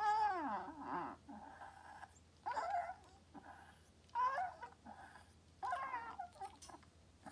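Small white dog whining from inside its wire cage: about five high, pleading whines, each falling in pitch, a second or so apart. It is begging to be let out.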